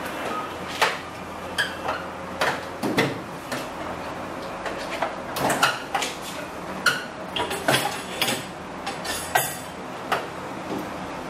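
Tools clinking and knocking together as someone rummages in a steel tool chest drawer, with the drawer sliding. The sound is a string of irregular short clatters, some sharper than others.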